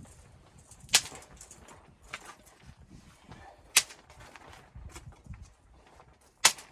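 Three sharp, loud knocks about three seconds apart, with soft crunching and rustling between them.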